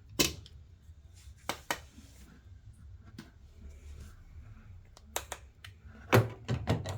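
Scattered sharp plastic clicks and knocks from handling a washing machine's drain filter cap, over a low steady hum, with a quicker run of clicks and knocks near the end.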